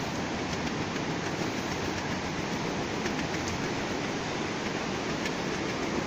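Steady rush of the canyon's mountain stream, an even wash of water noise with no change.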